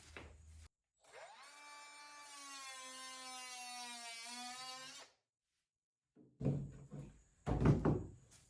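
Handheld cutoff tool spinning up with a quick rising whine and running at high speed for about four seconds while cutting, then stopping abruptly. Several loud knocks and clunks follow near the end.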